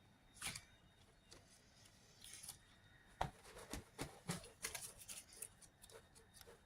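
Slime being handled, giving faint, short sharp clicks and pops: one about half a second in, then a quick irregular run of them from about three seconds on.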